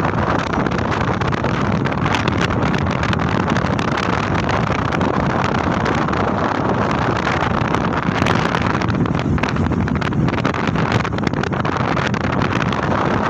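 Strong storm wind buffeting the microphone in a steady, loud rush, over the noise of a high-tide sea.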